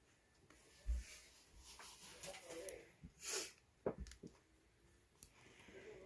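Quiet handling of presents and wrapping: a soft thump about a second in, a short breathy rustle a little past the middle, then a light click.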